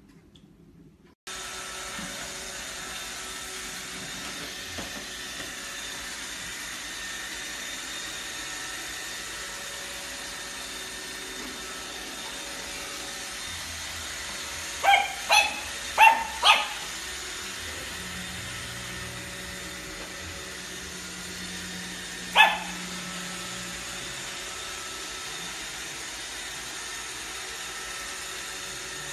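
Pug barking at a running robot vacuum: the vacuum's steady whir runs throughout, with four short barks in quick succession about halfway through and one more bark about six seconds later.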